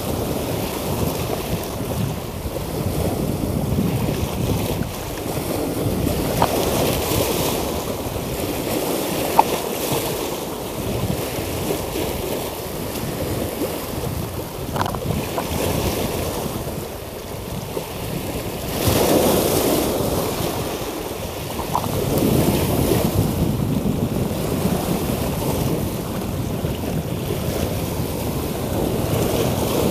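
Sea waves washing and splashing against the rocks of a seawall, in a steady wash, with larger surges about two thirds of the way in. Wind buffets the microphone.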